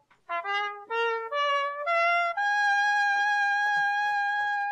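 Music: a solo trumpet-like brass line of short stepped notes climbing in pitch, then one long held note that stops at the very end.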